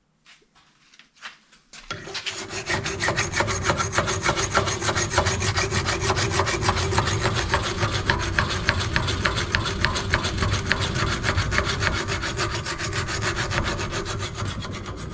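Hand file scraping back and forth along a cut aluminium square tube clamped in a bench vise, smoothing and evening up the edge left by the angle grinder. A few light knocks come first, and the filing starts about two seconds in and runs steadily.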